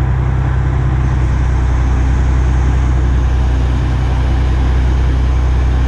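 Engine of a lifting crane running steadily at an even speed, a constant low drone.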